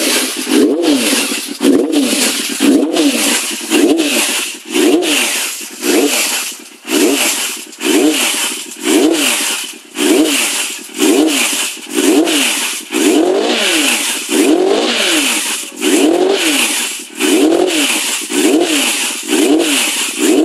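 Yamaha FZR400's inline four-cylinder engine being revved in repeated throttle blips, about one a second, each rising and then falling in pitch, on its first run after a top-end rebuild.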